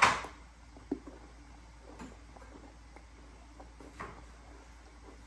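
A loud bite into a crunchy frosted animal cookie right at the start, then quiet chewing with a few faint mouth clicks.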